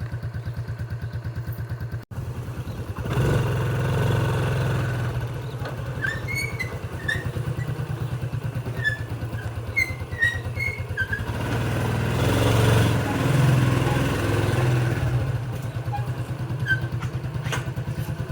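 A small engine running steadily with an even, rapid pulse, growing louder for a few seconds near the start and again past the middle. Short high chirps sound over it in the middle.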